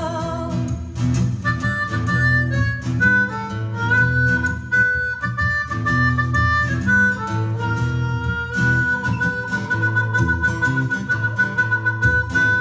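Blues harmonica solo over acoustic guitar accompaniment. The harmonica plays a line of short notes, then holds one long note through the second half.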